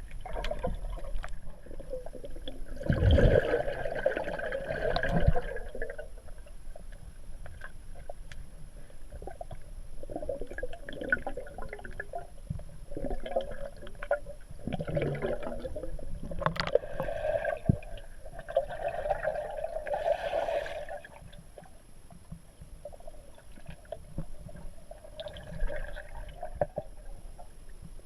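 Underwater ambience: air bubbles gurgling in irregular bursts of a second or two, several times over, with quieter stretches between. A faint steady high whine runs underneath.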